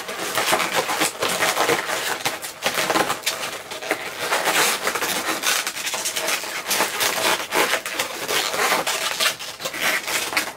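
Inflated latex modelling balloons squeaking and rubbing as they are handled and a headband is pushed in between two balloon bubbles: a dense run of irregular rubbery squeaks and scrapes.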